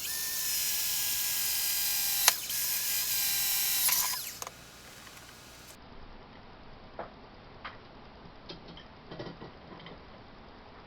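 Electric drill running at a steady speed for about four and a half seconds, drilling a new rivet hole with a smaller bit, then stopping; a few light handling clicks follow.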